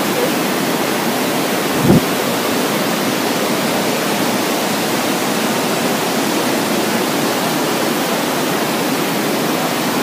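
Steady rush of a waterfall cascading over rock, with a brief thump about two seconds in.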